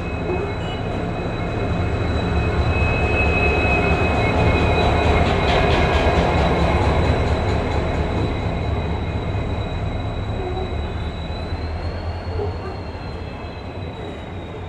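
A train running along the station track: a steady low rumble with a high whine that swells to its loudest about midway and then eases off.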